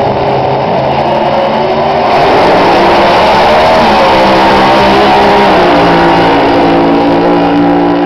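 Drag racing car engines at full throttle down the strip, very loud, growing louder about two seconds in, the pitch climbing and stepping down a few times as the car runs through its gears.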